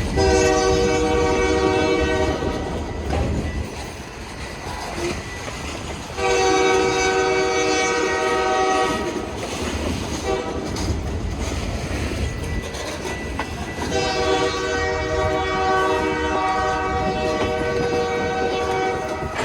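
Union Pacific locomotive's air horn sounding three long blasts, the last one the longest, over the rumble and clatter of the train's wheels on the rails.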